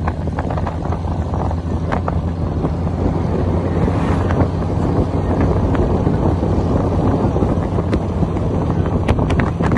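Honda Gold Wing touring motorcycle running steadily at cruising speed, its engine a constant low drone under heavy wind noise buffeting the microphone, with scattered sharp wind pops.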